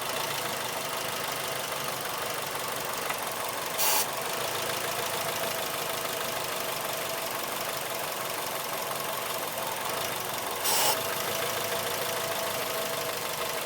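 2003 Mazda6 engine idling while an aerosol spray hisses in two short bursts around the throttle body, about four seconds in and again about eleven seconds in. The RPM goes up for a second or two right after each spray underneath, the sign of a vacuum leak under the throttle body that the owner believes is a PCV vacuum tube needing replacement.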